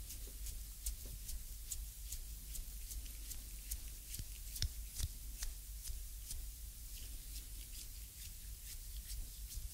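Thumb pressing and kneading the skin at the base of the toes of a bare foot during a reflexology foot massage, heard close up through binaural microphones. The skin gives irregular small clicks and crackles, several a second, with one sharper click about halfway through, over a steady low hum.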